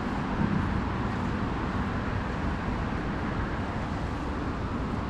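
Steady road traffic noise, a continuous rush of passing vehicles on the nearby road.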